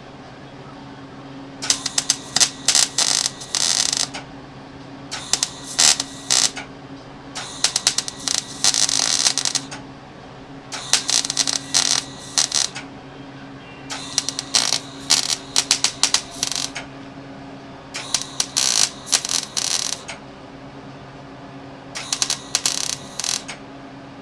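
Wire-feed welder laying short welds: about seven bursts of crackling arc, each one to two and a half seconds long, with a steady hum from the welder between them. The welds fix heat-shield tabs onto a catalytic converter.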